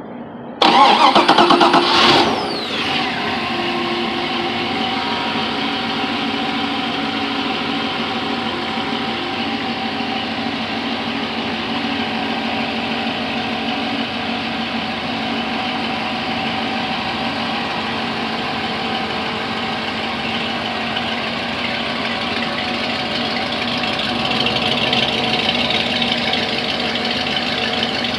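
Chevy 350 MPI marine V8 started with the key: it cranks and catches within about a second and a half, flares briefly, and the revs fall away into a steady idle.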